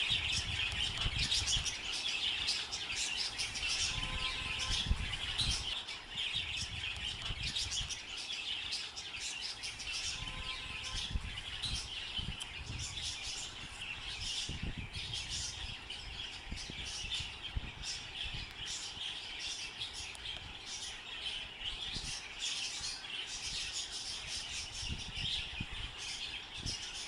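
Many birds chirping continuously in quick short calls, with a low rumble underneath that is stronger in the first few seconds.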